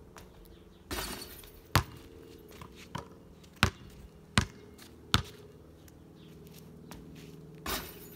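A basketball bouncing on a concrete driveway: about four sharp, separate bounces in the middle of the stretch. There is a brief noisy burst about a second in and another near the end.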